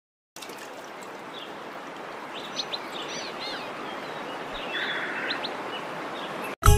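Waterfall rushing as a steady hiss, with birds chirping a few times over it. Loud music cuts in just at the end.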